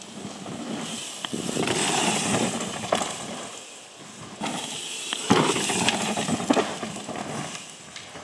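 Mountain bike riding a dirt forest trail: tyres rolling over loose loam, with sharp clacks and knocks from the chain and frame over bumps. It comes and goes twice, swelling up and fading each time.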